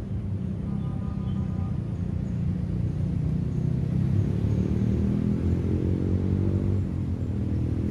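Low rumble of a nearby motor vehicle's engine running, its pitch climbing gently through the middle and easing off near the end.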